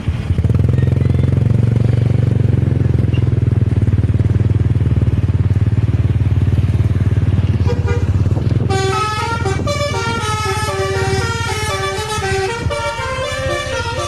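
Low, steady engine rumble of a tour bus and motorcycles. About nine seconds in, the bus's telolet horn starts, a multi-tone musical air horn stepping through a tune of several pitches at once.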